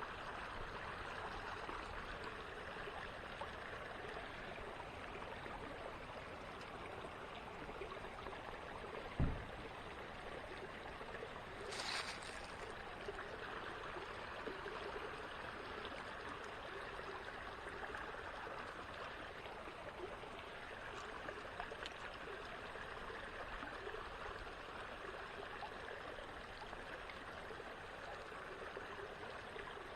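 Small creek's water running steadily. A single low thump comes about nine seconds in, and a brief hiss about twelve seconds in.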